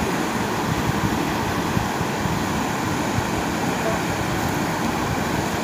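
River water rushing steadily over a rocky cascade and rapids.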